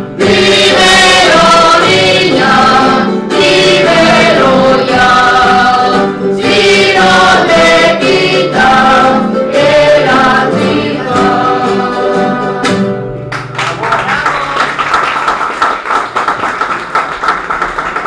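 Folk group singing in unison over strummed guitars and other plucked-string instruments. About thirteen seconds in the voices stop and the strings carry on alone with fast, even strumming.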